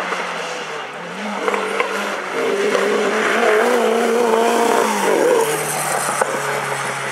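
Renault 5 Turbo Group B rally car's turbocharged four-cylinder engine passing close by: it comes in under power, is loudest a few seconds in as it goes past, then drops to a lower note as it pulls away.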